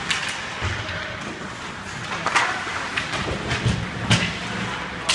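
Ice hockey play on the rink: sticks and puck clacking and skates scraping on the ice, several sharp knocks over a steady haze of rink noise, the loudest about two and four seconds in.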